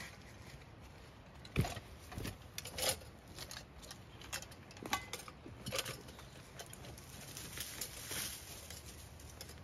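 Footsteps on dry leaf litter and twigs, with a few heavy thuds close by in the first three seconds, then lighter irregular steps moving away.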